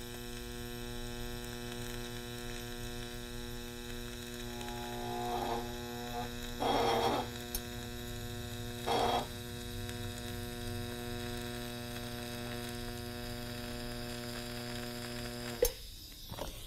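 TIG welding arc on a 4130 steel tab and tube, a steady electrical buzzing hum from the arc and welder, run deliberately too hot. It gets briefly louder a few times around the middle, and the arc cuts off abruptly with a click near the end.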